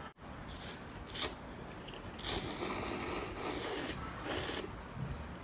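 A person slurping sweet potato noodles, one long slurp of about two seconds and then a shorter one.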